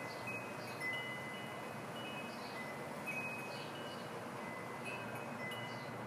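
Chimes ringing: clear high tones struck every half second or so in an irregular, overlapping pattern, over a steady hiss.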